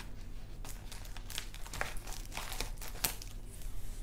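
A padded plastic mailer crinkling as it is cut open with scissors, a string of short, irregular crackles and snips.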